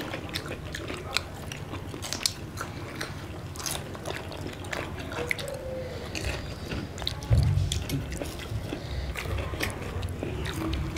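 People eating at a table: chewing and biting food, with many small crisp crunches and mouth clicks. A dull low bump comes about seven seconds in.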